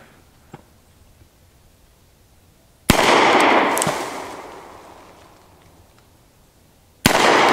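Two shots from a Colt Model 1917 revolver firing .45 ACP, about four seconds apart, the second near the end. Each loud crack is followed by a long echo that fades over a couple of seconds.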